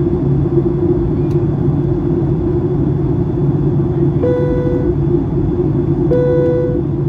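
Steady cabin roar of a Boeing 757-200 airliner in flight, heard from a window seat over the wing. Two short cabin chimes of the same pitch sound in the second half, about two seconds apart.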